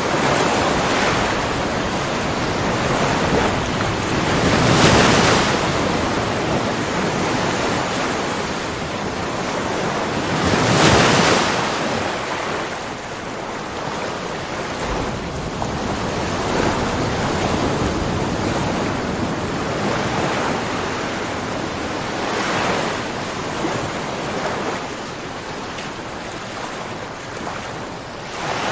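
Ocean waves washing in on a shore, a steady rush that surges every five or six seconds as each wave breaks. The two strongest surges come about five and eleven seconds in.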